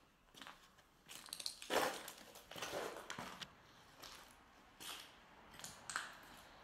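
Footsteps crunching over rubble and broken plaster, irregular steps with the loudest, densest crunching about two seconds in and a few separate steps near the end.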